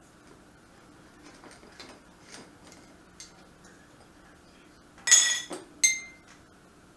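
Light handling taps, then two ringing clinks about five seconds in, half a second apart. They are metal and glass: a copper tube and a metal lid band coming off a glass mason jar and set down on a tile tabletop.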